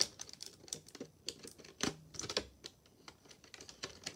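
Irregular light clicks and taps of small hard toy pieces and packaging being handled and set down, like scattered typing.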